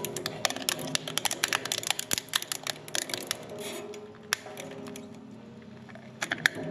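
Twin-shaft plastic shredder's cutter blades cracking and snapping a piece of rigid plastic: a rapid run of sharp cracks that thins out after about four seconds, with a short burst of cracks again near the end, over the machine's steady hum.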